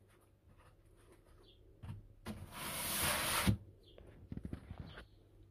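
Water poured from a watering can onto compost in seedling pots: a steady hiss lasting just over a second, ending with a thump about three and a half seconds in, followed by a few light taps.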